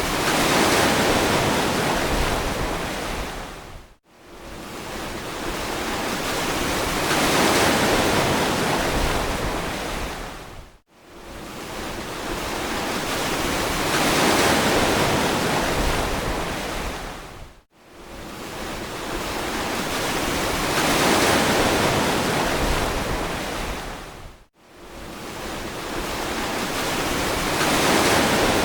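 Ocean waves washing onto a beach: a full, hissing surf that swells and falls away in a very even cycle about every seven seconds, dipping briefly almost to silence between swells, four times.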